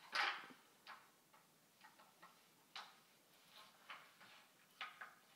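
Hard toy play-food pieces clicking and knocking together as a toddler handles them, about ten irregular light clacks over five seconds, the first one a little longer than the rest.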